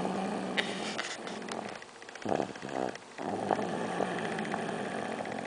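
A young boy snoring in his sleep: long, steady breath sounds with a short, louder snore about two seconds in.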